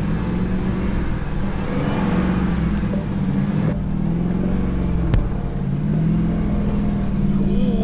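Jeep engine running steadily as the Jeep crawls up a steep slickrock climb, with one sharp click about five seconds in.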